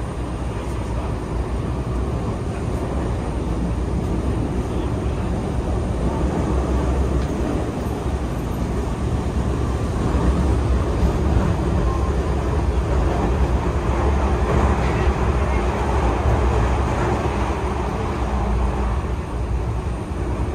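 Toei 6500 series train running, heard from inside the car: a steady rumble of wheels and traction motors that grows louder about halfway through.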